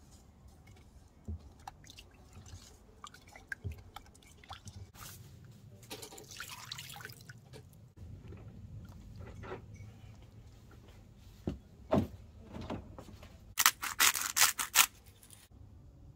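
Kitchen handling sounds: a silicone spatula stirring water and sugar with a lemon half in a stainless steel saucepan, with light scraping and sloshing. About halfway through this gives way to small clicks and then a quick run of splashes and knocks as butter cubes are tipped from a glass bowl into water in a frying pan.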